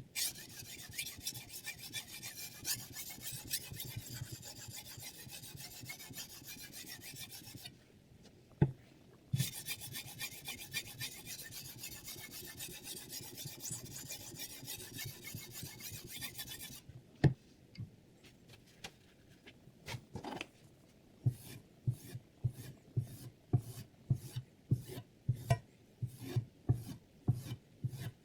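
Knife blade being sharpened on a whetstone: two long runs of rapid back-and-forth grinding strokes with a brief pause between them, then separate single strokes, about two a second, toward the end.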